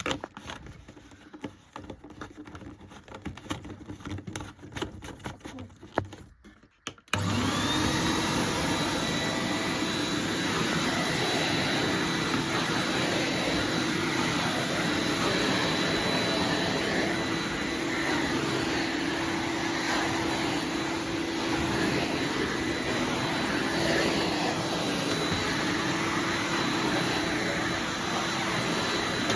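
Clicks and knocks of handling for several seconds, then a Numatic NVR260 vacuum cleaner is switched on about seven seconds in, its motor spinning up quickly and then running steadily with a high whine.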